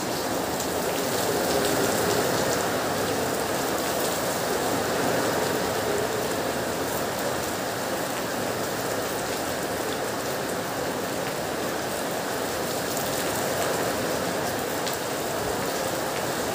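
Heavy rain falling steadily, a continuous even hiss with scattered ticks of individual drops.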